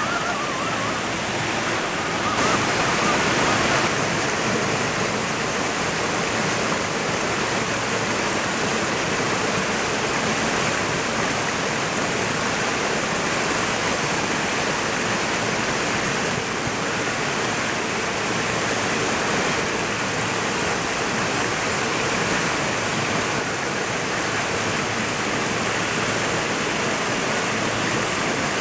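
Shallow river rushing over rock ledges and small cascades: a steady rush of water.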